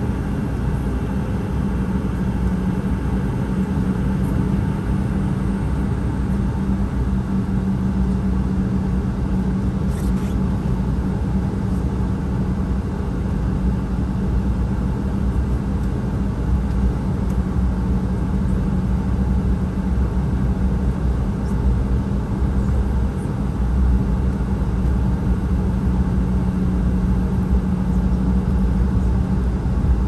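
Steady cabin noise of an Embraer E175 airliner taxiing, heard from a window seat: the jet engines' low rumble at taxi power, with a steady drone held at one pitch throughout.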